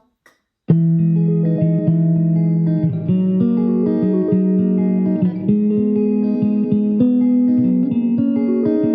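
Music with guitar, starting abruptly under a second in after a brief silence and then playing steadily.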